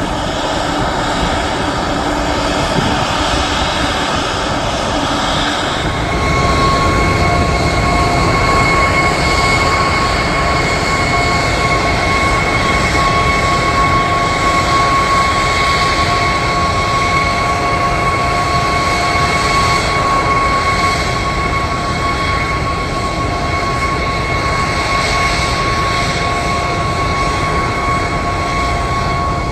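Twin Rolls-Royce Trent 800 turbofans of a Boeing 777-200ER running during an engine run-up. About six seconds in they power up and get louder, and a steady high-pitched whine comes in and holds.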